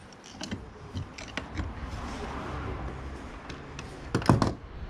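Small metal clicks and knocks of U-bolt clamps and nuts being fitted to a kayak stabilizer bar by hand, with a quick run of louder clicks about four seconds in.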